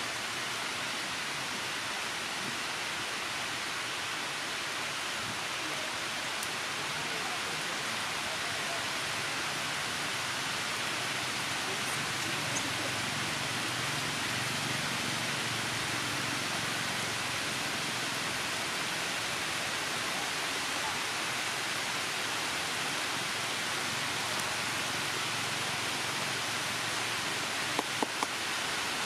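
Steady rain falling, an even hiss without a break, with a few short sharp clicks near the end.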